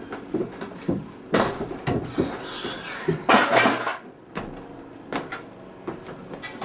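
Scattered knocks and thumps of people walking on a wooden deck, mixed with handheld-camera handling noise. Two louder rustling bursts come about a second and a half and three and a half seconds in.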